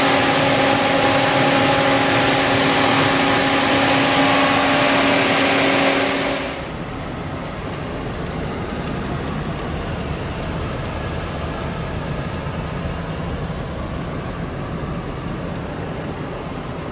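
2008 Chevrolet Silverado pickup's engine idling under the open hood: a loud steady whir with a few steady humming tones. About six and a half seconds in it drops to a quieter, even running noise as heard from inside the cab.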